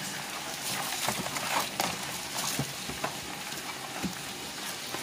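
Live mud crabs in a plastic crate, their hard shells and legs clicking and scraping against one another and the crate in irregular clicks.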